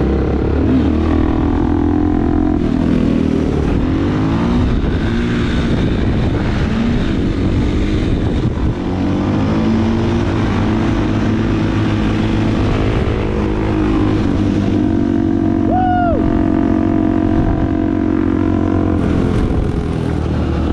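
Dirt bike engines running under way, their pitch rising and falling as they rev and shift. A brief high rising-and-falling tone sounds once about sixteen seconds in.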